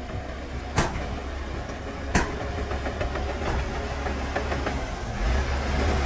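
Heavy diesel earthmoving machinery running with a steady low rumble, with two sharp knocks about one and two seconds in; the engine gets louder about five seconds in.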